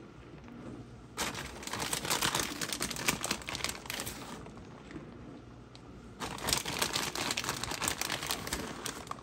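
Packaging crinkling as it is handled, in two long spells of crackly rustling: one starts about a second in, the other about six seconds in.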